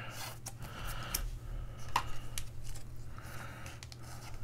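Trading cards and pack wrappers being handled: light rustling and scattered small clicks and scrapes, over a steady low hum.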